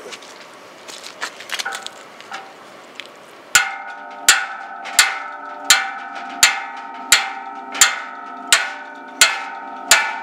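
Hammer blows on a steel drift punch driving a stub shaft out of a pedal boat's paddle wheel into a pipe below. After a few seconds of light handling knocks come about ten evenly spaced blows, roughly three every two seconds, each with a bright metallic ring that dies away.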